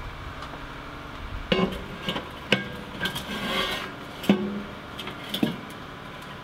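Thick steel plancha being set down onto a Weber kettle grill: about five metal clanks that ring briefly, with a scrape of steel on steel in the middle as it is shifted into place.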